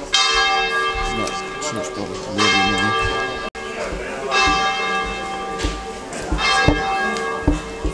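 Church bells ringing, struck about every two seconds with each stroke ringing on, and a man's voice singing in snatches between the strokes.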